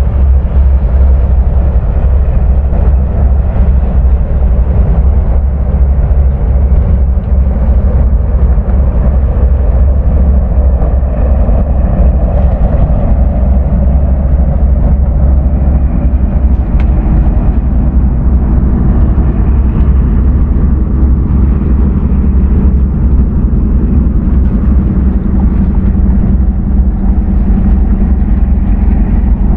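A steady, loud low rumble with a faint hum over it, with no break or sudden event.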